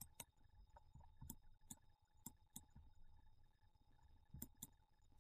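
Near silence with several faint computer-mouse clicks, some in quick pairs, over a faint steady hum.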